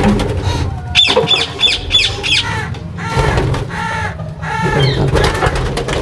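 Yellow Indian ringneck parakeets calling in a run of repeated harsh squawks, about three a second, with wing flaps as the hen flutters out of the wooden nest box. A sharp knock at the start as the nest-box door is opened.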